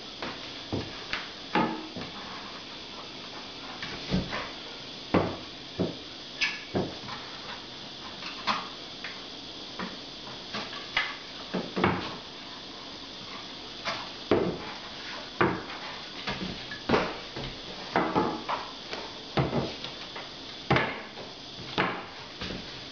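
Irregular light wooden knocks and taps, roughly one a second, as a wooden batten is stood against the wall and set down on the benchtop.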